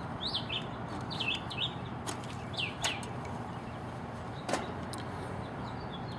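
Small birds chirping in short falling chirps over a steady background hiss, with a few light clicks in between.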